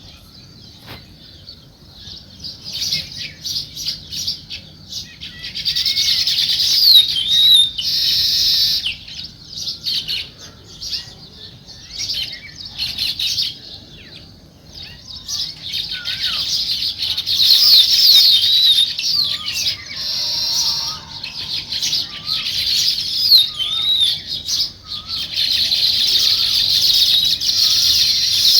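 A group of house sparrows chirping, many calls overlapping in dense bursts that swell and fade again several times.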